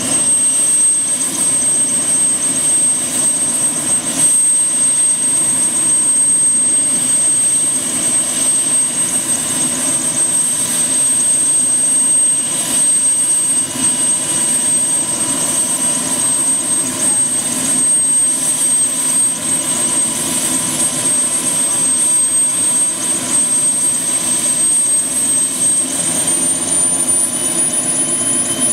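Small turbine helicopter idling on the pad with its main rotor turning, during start-up before take-off. Its engine gives a steady high whine that rises a step in pitch near the end.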